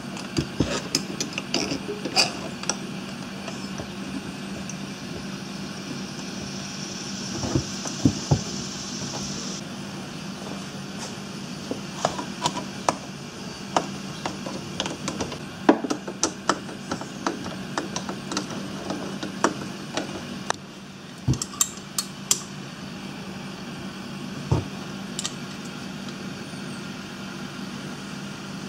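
Scattered clicks and taps of metal tools and parts as a small electric starter motor is reassembled and its end-plate bolts are turned with a nut driver. A steady low hum runs underneath.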